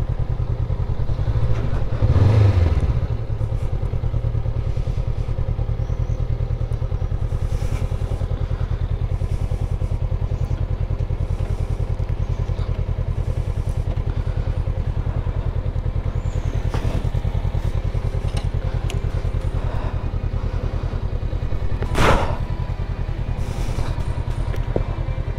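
Honda CB500X parallel-twin engine idling steadily while the bike stands still. There is a louder thump about two seconds in and a sharp knock near the end.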